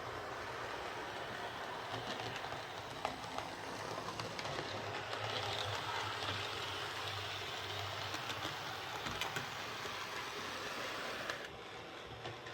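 Hornby Class 47 OO gauge model locomotive with a Ringfield motor running along model track: a steady motor whirr and wheel noise with scattered light clicks, turning quieter and duller about eleven seconds in.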